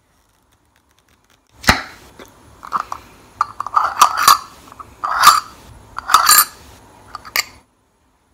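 Glass jar of pizza sauce being twisted open right against the microphone: starting about a second and a half in, a run of loud clicks, knocks and short rasps from the screw-top lid turning on the jar, ending abruptly about a second before the end.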